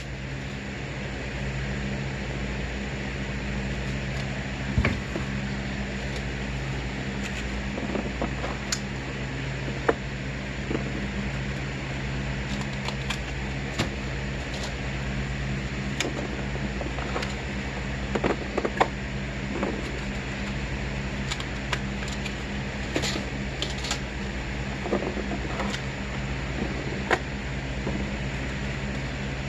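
A motor running steadily with a low, even hum, with scattered light clicks and knocks over it.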